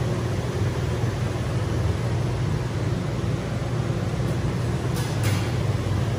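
Steady low hum of running ventilation and refrigeration machinery, with one short noise about five seconds in.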